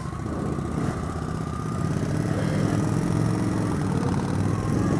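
A vehicle engine running with an even low hum, rising a little in pitch and loudness from about two seconds in.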